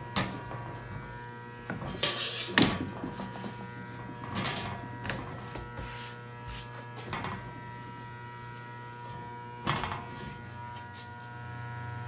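A cloth rag wiping and rubbing along stainless-steel panels and edges in several short scrubbing strokes, the loudest about two seconds in. A steady electrical hum runs underneath.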